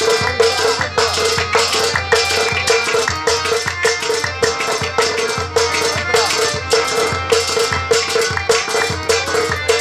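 Instrumental music without singing: a harmonium plays a melody in held reed tones over a fast, even hand-drum rhythm on a Kashmiri tumbaknari clay goblet drum.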